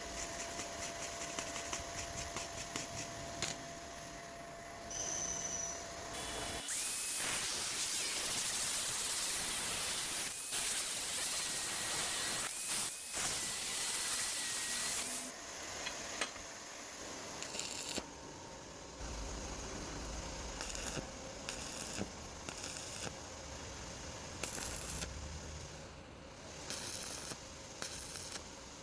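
Stick welding arc hissing and crackling steadily for about nine seconds, starting about seven seconds in, with scattered light clicks and knocks of metalwork before and after.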